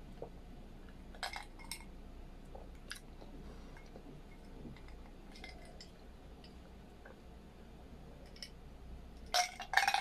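Soft swallowing and mouth clicks while drinking from a glass, then a sharp clink or two as the glass is set down near the end.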